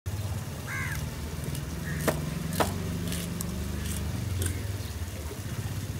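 Two sharp knocks about half a second apart as a cleaver strikes into a tuna on a wooden chopping block, with a few lighter taps after. A steady low engine hum runs underneath.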